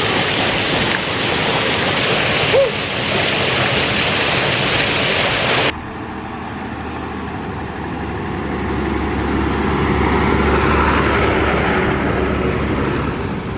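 Rushing waterfall water. About halfway through it cuts off abruptly, replaced by a bus engine's low rumble that swells as the bus approaches and passes, then eases.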